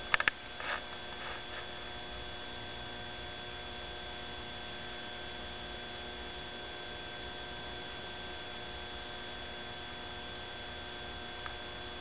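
Steady electrical hum with hiss and several fixed tones, typical of recording noise. A few sharp clicks come right at the start, with a couple of soft rustles just after.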